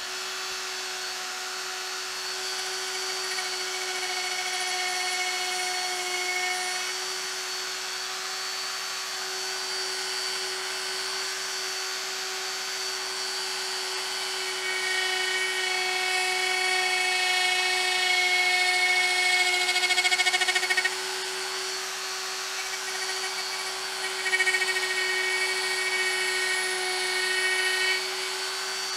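Hercules quarter-inch electric die grinder, used as a tool post grinder on a lathe, running at a steady high whine while its wheel grinds the point of a center punch. The sound gets louder and harsher for a stretch in the middle and again near the end.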